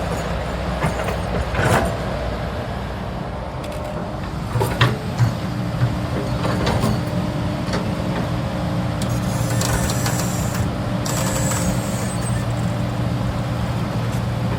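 Hydraulic excavator's diesel engine running steadily, with a few sharp knocks about 2 and 5 seconds in and a hiss from about 9 to 12 seconds in.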